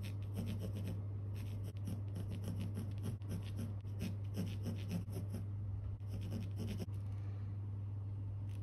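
Faber-Castell 9000 graphite pencil scratching on canvas in quick, short, repeated strokes while drawing block lettering. The strokes stop about seven seconds in, and a steady low hum runs underneath.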